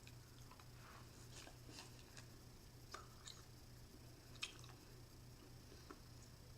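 Faint, soft chewing of a sticky raspberry taffy, with scattered small mouth clicks and smacks over a low steady hum.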